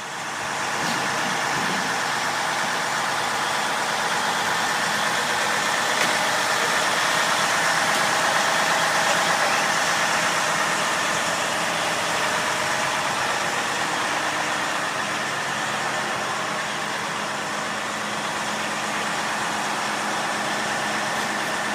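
A frac truck's engine and machinery running steadily, a constant mechanical drone that fades in at the start.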